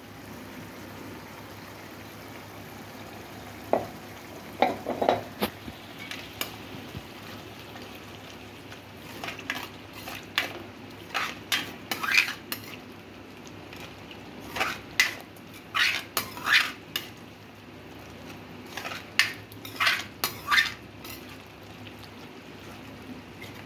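Steel spoon scraping and clinking against a steel kadhai as spinach paste is stirred into hot masala, over a low steady sizzle. A few clinks come about four seconds in, then repeated spells of stirring strokes through the rest.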